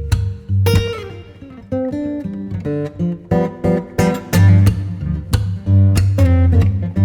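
Background music: an acoustic guitar track, strummed and plucked, over bass and a beat.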